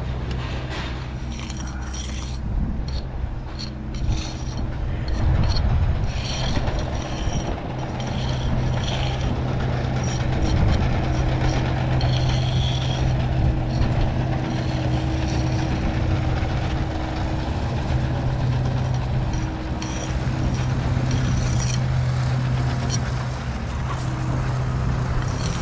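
Steel brick jointer scraping and rubbing along fresh mortar joints as the bed joints are touched up. Under it runs the steady drone of a diesel engine on site machinery.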